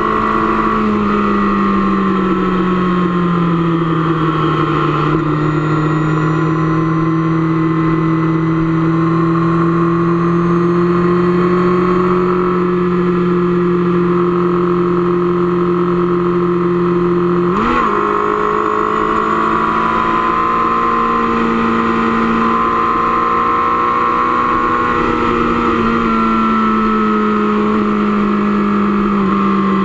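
Motorcycle engine running at highway cruising speed, with steady wind rush. Its note falls in the first few seconds, then holds steady, and about 18 seconds in it rises sharply for a moment before settling slightly higher.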